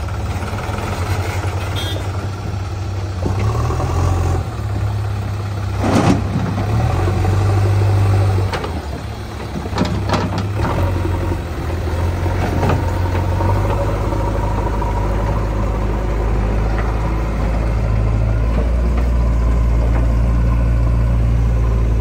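JCB 3DX backhoe loader's diesel engine running, its speed rising and falling as it works. There is a sharp clank about six seconds in and a few lighter knocks a few seconds later.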